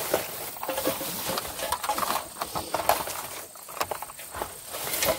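Irregular clicking, clattering and rustling of small hard objects being handled and moved about.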